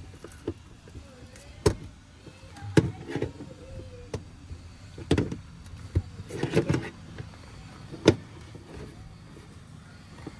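Pliers clicking and scraping against the metal and plastic fittings of a car's fuel pump access cover as they are gripped and worked. There are about eight irregular sharp clicks and knocks; the loudest comes near the end.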